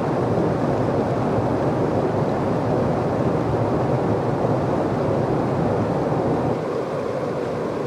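Whitewater river rapids rushing steadily, a little quieter near the end.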